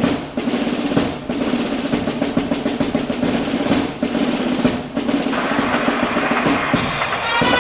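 Background music opening with a fast snare drum roll. Pitched instruments come in near the end.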